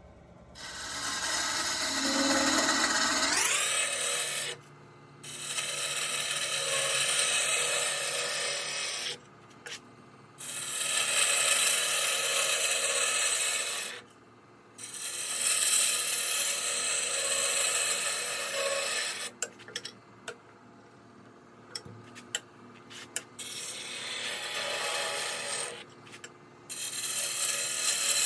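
Goncalo alves (tigerwood) blank spinning on a wood lathe while a turning tool cuts and scrapes it. The work comes in passes of a few seconds each, with short breaks between them.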